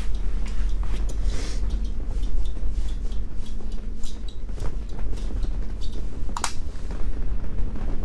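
Clicks and knocks of an ice-fishing rod and reel being handled, with one sharper knock about six and a half seconds in, over a steady low rumble of strong wind buffeting the ice shack.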